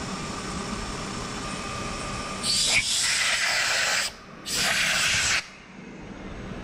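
Compressed-air blow gun blasting aluminum chips off a CNC mill's vise in two bursts, the first about a second and a half long starting just over two seconds in, the second about a second long, over a steady machine hum.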